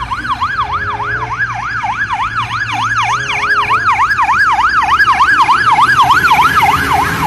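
Fire engine siren sounding a fast yelp, its pitch rising and falling about four times a second, with the truck's engine running underneath. It grows louder as the truck approaches and passes close, loudest about six seconds in.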